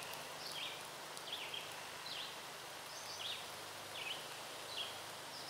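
Faint woodland ambience: a small bird chirping short, high notes every half second to a second over a light steady hiss.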